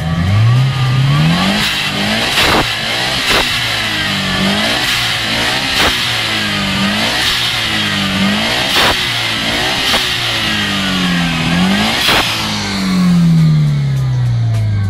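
Subaru STI's turbocharged flat-four boxer engine being free-revved over and over, its pitch climbing and falling about once a second, with a longer, slower fall near the end. Sharp cracks cut in now and then.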